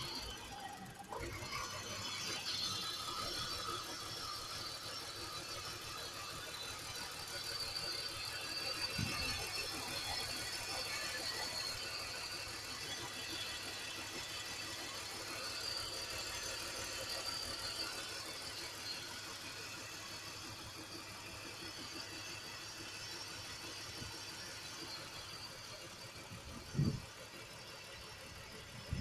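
Engine idling steadily, with a short knock about nine seconds in and a louder one near the end.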